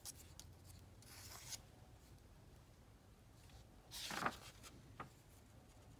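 Quiet handling of a paper pattern sheet on a workbench. A soft rustle comes about a second in, a louder paper rustle as the sheet is slid about four seconds in, and one light tap a second later.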